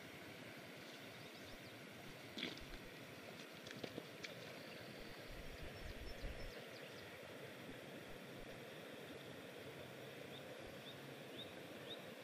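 Steady outdoor background hiss beside a river, with a few sharp clicks around the middle and a run of short, high rising chirps near the end.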